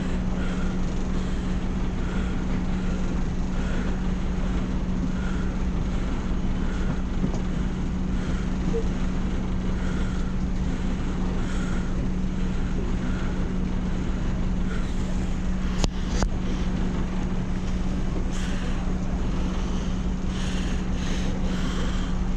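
Small passenger ferry's engine idling while moored at the pier: a steady low drone with a constant hum. A single sharp click about sixteen seconds in.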